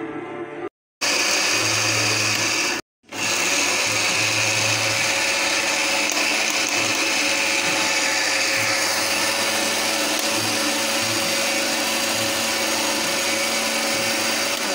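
Sayona juicer/blender with its grinding-mill jar running steadily, grinding dry oats into flour. It cuts out twice briefly in the first three seconds, then runs without a break.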